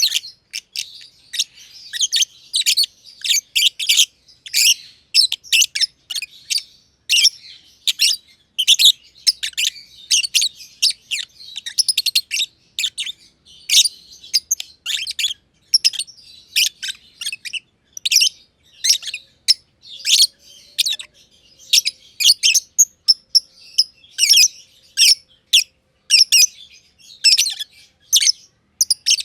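Two black-masked lovebirds (masked lovebirds, Agapornis personatus) chirping constantly: a rapid, continuous stream of sharp, high-pitched chirps and squeaky calls, several a second.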